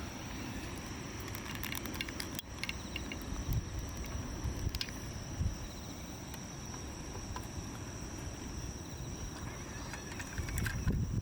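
A steady high-pitched insect trill, with a low rumble underneath and a few light clicks about two seconds in.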